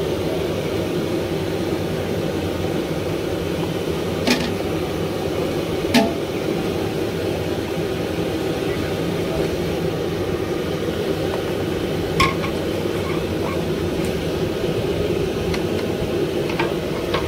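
Boondi frying in a large kadhai of hot oil: a steady low rushing noise, broken by a few sharp metal clinks of the perforated skimmer against the pan, about four, six and twelve seconds in.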